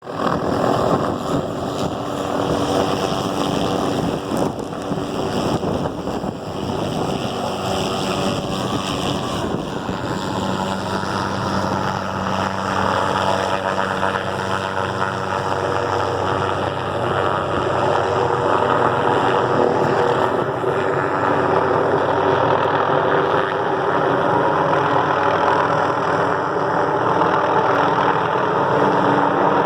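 Helicopter running close by: a steady engine and rotor noise that grows slightly louder over the second half.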